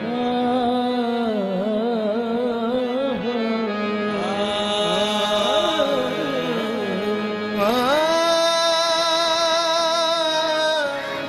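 Qawwali music: a voice sings slow, ornamented melodic runs that wave up and down, then slides upward about eight seconds in to a long held note, with almost no drumming.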